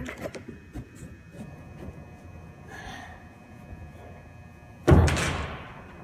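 A single loud thud about five seconds in as a person drops and lands on the padded floor of an indoor soft-play frame, dying away over about a second.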